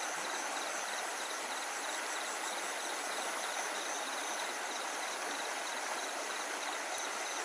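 Steady rush of stream water, with insects chirping over it in an even, repeating pulse.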